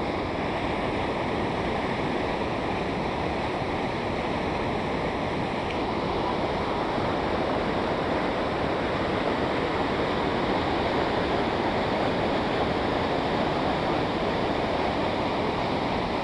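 Fast, strong current of a river rushing over a rocky waterfall: a steady, loud rush of water.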